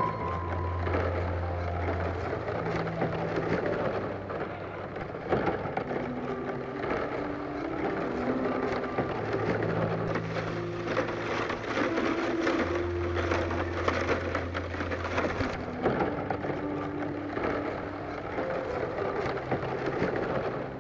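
Thin bamboo strips crackling and clicking against each other as they are bent and woven into a basket, over background music of slow held notes with a sustained low bass.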